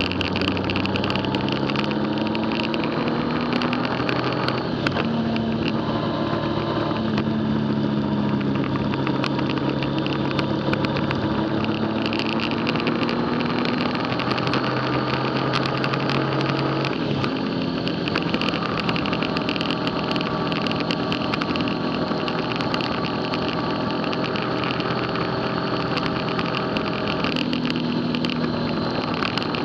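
Motorcycle engine running at road speed, its note rising and falling with the throttle and dipping briefly a little past halfway, over a steady rushing noise.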